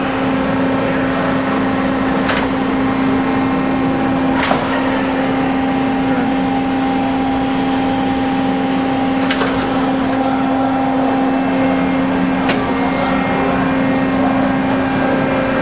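Hydraulic pump unit of a Pines AD 35 CNC tube bender running with a steady hum, with four sharp clicks spread through it.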